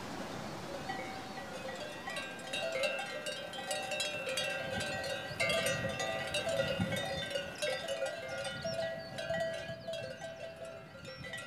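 Many livestock bells clanking and ringing together, a dense jangle of overlapping tones that builds up about two seconds in.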